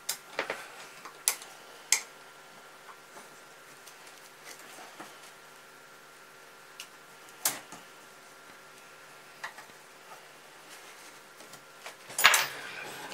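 Scattered sharp clicks and taps of the steel clamp and fittings of a guided knife-sharpening system as a knife blade is repositioned and clamped, with a louder cluster of knocks near the end, over a faint steady hum.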